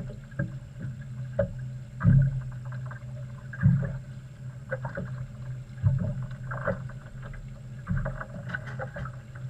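Water slapping and knocking against the hull of a drifting center-console fishing boat, in irregular slaps with a few louder ones, over a steady low hum.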